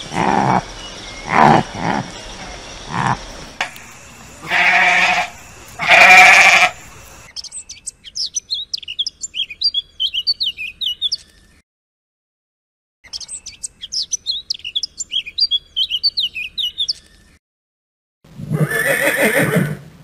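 A run of animal calls. First, several bleating calls, the loudest two near the middle of the first seven seconds. Then two stretches of rapid, high chirping a few seconds long with a gap between them, and near the end a horse starts to whinny.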